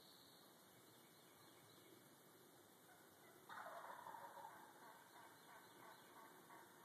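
Wild turkey gobbler gobbling from its roost tree, one faint gobble about halfway through that breaks off suddenly and trails away over a couple of seconds.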